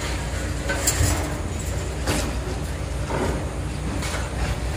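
Long-reach demolition excavators at work: the diesel engines run steadily underneath while the crusher attachment breaks and pulls at the building, giving several crunches and clanks of concrete and steel debris about once a second.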